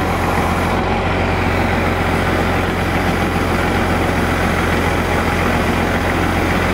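Heavy truck engine idling steadily, a constant low hum with no change in speed.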